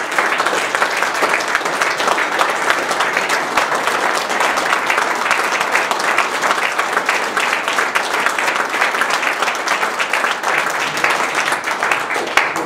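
Dense, steady applause from a large audience clapping together, fading just at the end.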